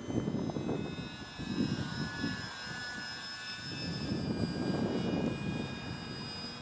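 Electric motor and propeller of a Durafly Tundra RC plane flying overhead: a steady high whine with a slight change in pitch about four seconds in. Irregular low rumbling from wind buffeting the microphone sits under it.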